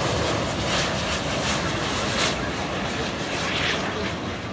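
Jet airliner engine noise, a steady, rushing roar that eases off slightly in the second half.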